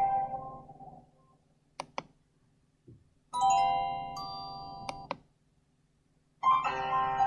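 Medion M5511 mobile phone ringtones played through the phone's small loudspeaker. A chiming tone dies away, a few sharp clicks follow, and a short tone of several held notes cuts off right after two more clicks. Near the end a new ringtone melody starts.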